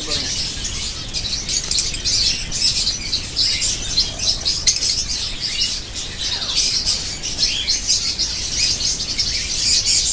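Many small birds chirping continuously, a dense chatter of short high calls.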